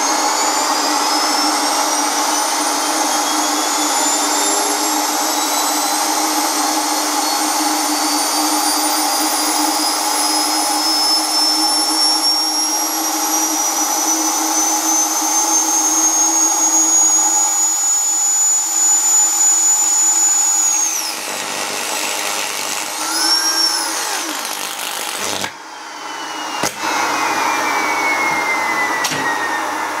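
Exposed vacuum-cleaner motor running up under rising voltage, its whine climbing steadily in pitch. About 21 seconds in the whine falters and wavers. Near 25 seconds it cuts off with a sharp click, then winds down with a falling whine as the overdriven motor burns out.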